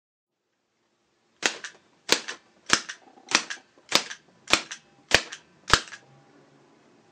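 Handmade wooden rod-drive rubber band hand gun (OGG CRAFT P215 Shaquerine) firing all eight rounds semi-automatically: eight sharp wooden clacks about 0.6 s apart, each with a lighter click just after it. The shots begin about a second and a half in.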